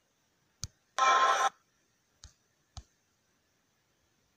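A few sharp, isolated clicks of fingers tapping on a smartphone screen, with a short loud burst of noise lasting about half a second about a second in.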